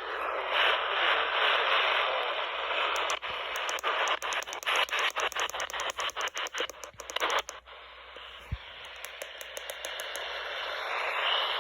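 Radio static: a steady hiss through a radio receiver's narrow sound band, broken from about three seconds to about seven and a half seconds in by a fast run of clicks and crackles.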